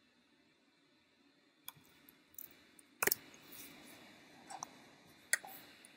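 Scattered single clicks of a computer keyboard and mouse, about six of them, the loudest about three seconds in, after a quiet first second and a half.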